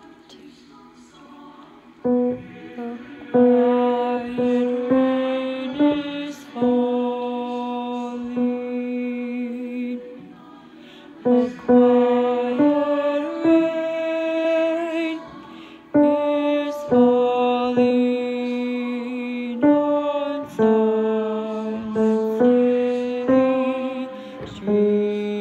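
A tenor voice singing a slow, soft melody in long held notes, coming in about two seconds in.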